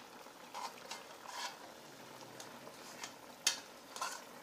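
Spoon scraping and clicking softly in a steel karahi as softened tomatoes are lifted out of the simmering chicken, over a faint steady sizzle from the pot. One sharper click near the end.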